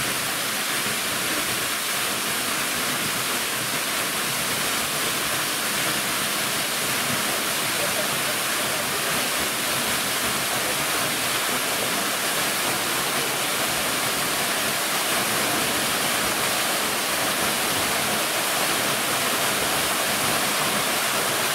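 Rushing water, a steady unbroken noise.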